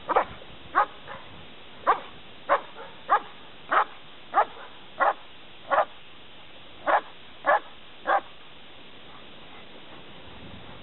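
A long-coated German Shepherd barking at the helper in a protection-training blind, the hold-and-bark part of protection work. About a dozen loud single barks come at a steady pace, roughly one every half second to second, and stop about eight seconds in.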